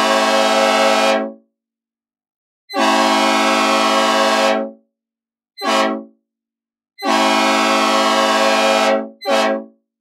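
Synthesizer recreation of a Nathan P01235 'old cast' five-chime locomotive air horn, sounding a rich chord in separate blasts. One blast cuts off about a second in, then comes a long blast, a short one, another long one and a last short one right after it.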